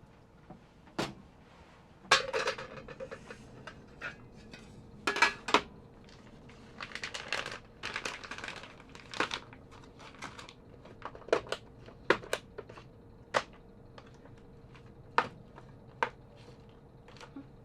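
Cookware and utensils being handled to prepare a meal: scattered sharp clinks and knocks, with two stretches of rustling, over a faint steady hum.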